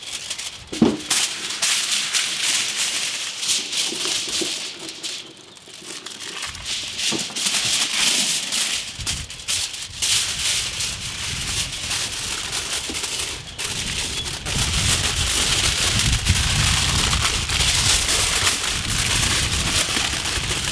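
Aluminium foil crinkling and rustling as a large sheet is handled and folded around slabs of beef ribs, a dense run of small crackles. There is a sharp tap about a second in.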